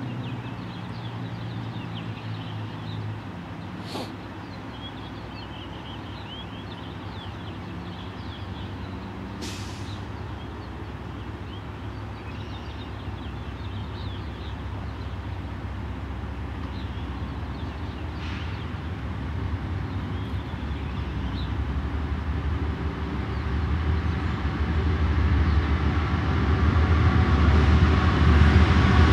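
Canadian Pacific diesel freight locomotives approaching: a low engine rumble that grows steadily louder, most of all over the last several seconds. Faint bird chirps come through in the first half.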